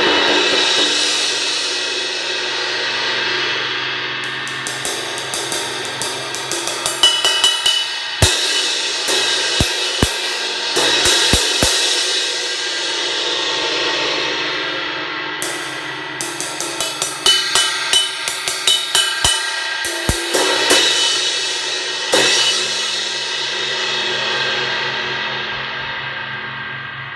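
Zildjian 18-inch A Custom Projection crash cymbal played with sticks: long ringing crashes with two stretches of rapid strokes and several harder hits, the wash fading out slowly near the end. A repaired cymbal that still sounds loud and big, with no crack buzz.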